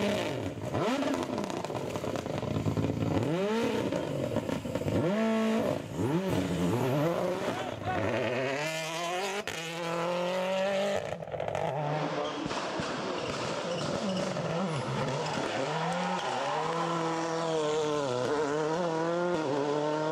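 Rally car engines revving hard at speed on a stage, the pitch climbing and dropping back again and again with gear changes as the cars pass.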